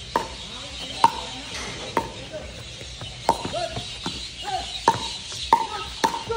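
Pickleball rally: a hard plastic ball being hit back and forth, making sharp, hollow pocks, about seven or eight of them at roughly one a second.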